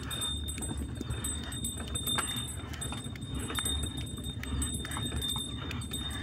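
Single-ox bullock cart rolling along a dirt track: irregular knocks and rattles from the cart and the ox's hooves over a steady low rumble.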